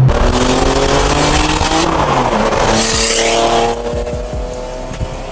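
Modified Porsche 930 Turbo's air-cooled flat-six, with a bigger single turbo and free-flowing exhaust, accelerating hard: revs climb, an upshift about two seconds in drops the pitch, and the revs rise again. A loud hiss peaks around three seconds in, and then the engine runs quieter and steadier.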